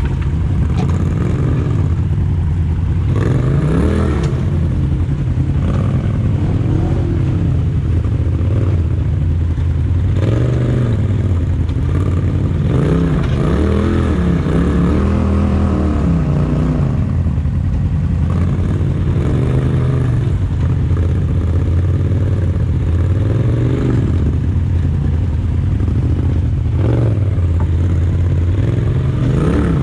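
Polaris RZR side-by-side engines on a rock-crawl climb: a steady idle close by, with the engine revving up and down several times as the machine ahead works its way over the rocks.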